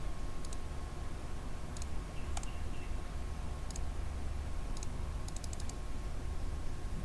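Computer mouse clicking: single sharp clicks spaced a second or so apart, then about four quick clicks in a row near the end, over a low steady hum.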